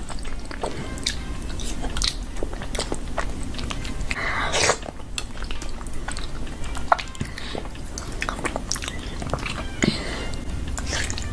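Close-miked mouth sounds of a child eating cheesy pasta: wet chewing with frequent lip smacks and clicks, and one longer, louder breathy mouth sound about four and a half seconds in.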